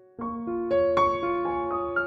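Background piano music: a brief near-silent gap, then a series of ringing notes begins just after the start.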